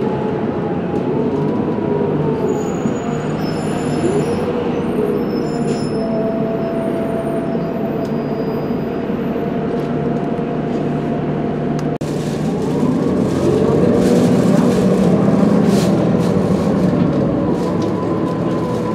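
A Gillig Advantage diesel transit bus with a Cummins ISL9 engine and Allison transmission running under way, with a whine that glides up and down in pitch. A brief dip comes about twelve seconds in, after which it grows louder as the bus accelerates.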